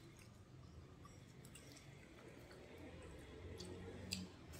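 Faint eating sounds: chewing and soft wet squishing as hands pull apart cooked goat meat, with a couple of small clicks near the end.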